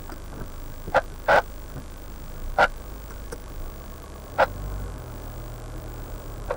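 Low steady hum inside a car, picked up by an in-car camera recorder, with four short sharp clicks. About four and a half seconds in, the low hum grows a little louder.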